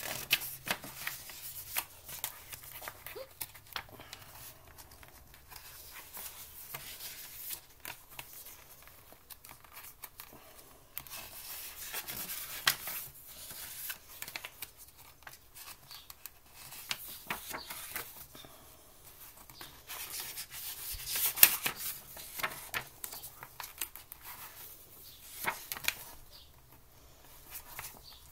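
Paper pages of a booklet turned and smoothed by hand: a run of irregular rustles and flicks, with a louder flurry about three quarters of the way through.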